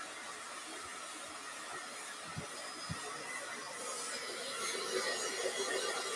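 Hand-held hair dryer running steadily on high, blowing air over a raccoon pelt to dry the fur.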